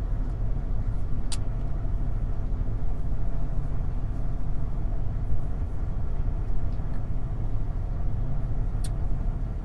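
Steady low rumble of a car heard from inside the cabin, with two short clicks, one about a second in and one near the end.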